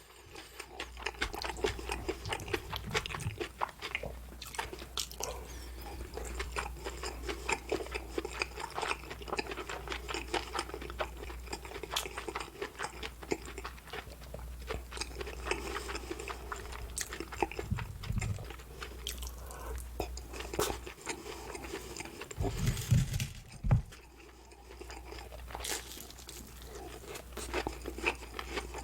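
Close-miked eating of a Korean-style breaded pork cutlet and Napolitan spaghetti: steady chewing with crisp crunches and many small mouth clicks. A few louder low knocks come past the middle.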